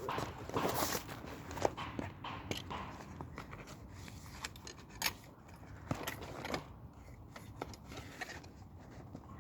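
Irregular clicks, knocks and scraping rustles of fishing gear being handled, loudest in the first second or so.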